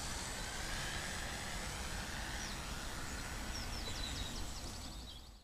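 Faint, distant whine of a small electric RC plane's brushless motor in flight, over a low rumble of wind on the microphone. A bird chirps several times near the end, and the sound cuts off abruptly.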